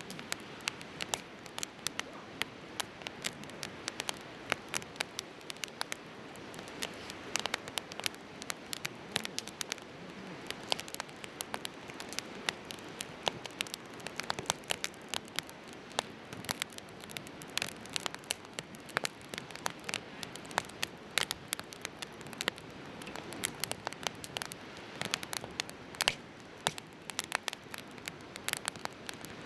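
Firewood burning in a Coleman Fire Disc fire pit, crackling with frequent, irregular sharp pops and snaps over a steady hiss.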